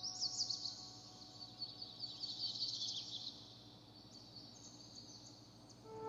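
Songbirds chirping: a quick, dense run of high chirps for the first three seconds or so, then fainter, more scattered high calls.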